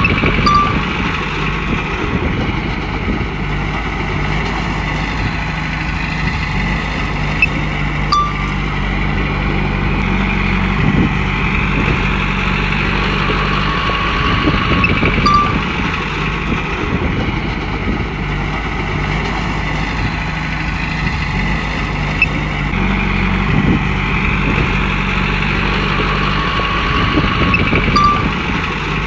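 Komatsu bulldozer's diesel engine running steadily while working, its note swelling and easing every several seconds.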